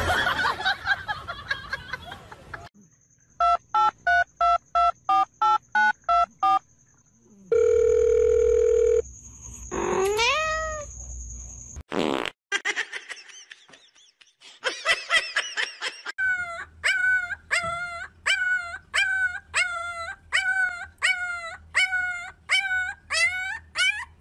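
A string of short sounds: about three evenly spaced beeps a second, then a held tone and a rising glide, and over the last seven or so seconds a puppy's high-pitched whimpers, about two a second.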